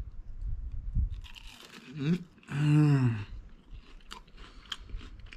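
Close-up crunching and chewing of a bite of crispy potato-crusted chicken breast (ondráš) in the first second and a half. About two and a half seconds in, the eater gives a loud drawn-out vocal exclamation that falls in pitch, followed by a few faint clicks.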